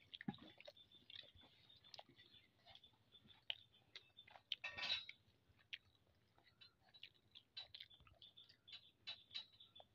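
Faint chewing of someone eating rice by hand, with scattered small clicks and one louder rustling noise a little under five seconds in.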